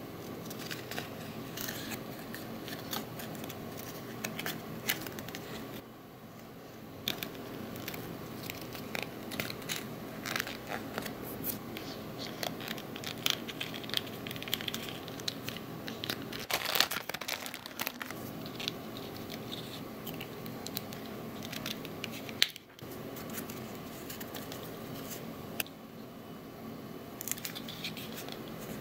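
Thin printed cardboard being handled, folded and slotted together by hand: crinkling and rustling paper with many small clicks and taps.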